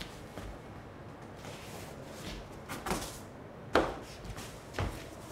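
A rolled exercise mat being flung open and unrolled onto a wooden floor: a swish, then a sharp slap as it lands about three-quarters of the way in, and a softer slap about a second later.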